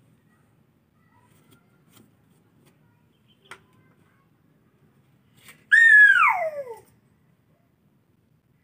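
A young child's single high-pitched squeal, about a second long, that starts shrill and glides down in pitch.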